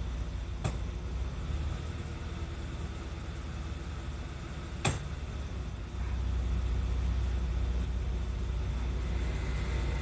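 Mercedes-Benz C240 (W202) V6 engine idling, heard from inside the cabin, with two sharp clicks, one about a second in and one near the middle, as the automatic gear selector is moved. The low hum grows louder about six seconds in.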